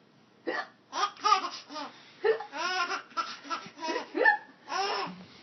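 A baby laughing in a string of short, high-pitched bursts, mixed with a woman's hiccup sounds.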